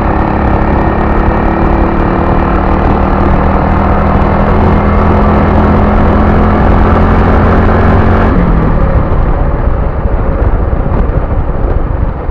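Motorcycle engine running steadily while the bike is ridden, heard from the rider's seat. About eight seconds in, the steady engine note drops away, as when the throttle is eased off, and a rough rushing noise is left.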